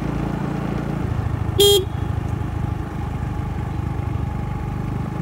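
Motorbike engine running steadily while riding, with one short horn beep about a second and a half in.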